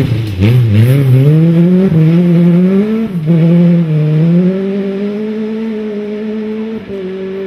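Millington Diamond four-cylinder rally engine at high revs under hard throttle. The revs rise and fall quickly over the first couple of seconds, climb, dip briefly at a gear change about three seconds in, then hold high and ease off slightly before the sound cuts off abruptly.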